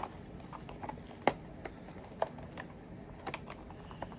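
Fingers picking at the tucked lid of a small cardboard product box, trying to open it without tearing: scattered sharp clicks and light taps, the loudest right at the start and about a second in.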